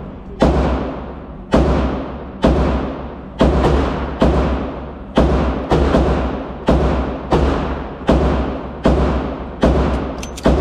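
Pistol shots fired one after another, a dozen or more at roughly one per second, each ringing off in the echo of an indoor range.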